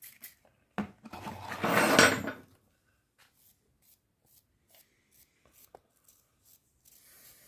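A burst of cleaning solvent sprayed onto a stripped-down spark plug, a sudden hiss about a second in that lasts about a second and a half. Faint clicks and light scrapes of small parts being handled follow.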